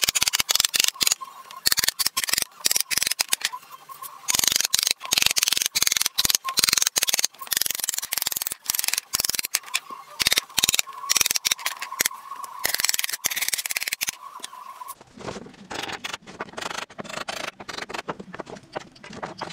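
Hammer driving nails through pallet-wood crossbars into the slats: a rapid run of sharp knocks on wood. About fifteen seconds in the knocking stops and gives way to quieter handling of a loose board.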